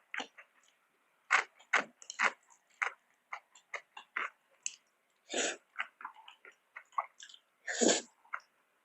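Close-miked eating sounds from a mukbang: chewing with wet mouth clicks and smacks, irregular and rapid, with two longer, louder mouth sounds about five and a half and eight seconds in.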